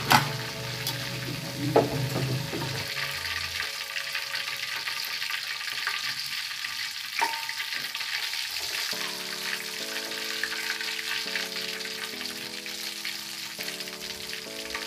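Battered chicken liver deep-frying in hot oil in a wok: a steady sizzle, with three sharp clinks of metal tongs and spatula against the wok as pieces are turned and lifted out. Background music with a slow chord pattern comes in about nine seconds in.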